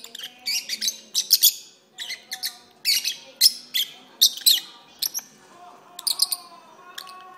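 Pet peach-faced lovebirds singing: a fast, irregular run of shrill, high chirps and squeaks, several a second, thinning out near the end.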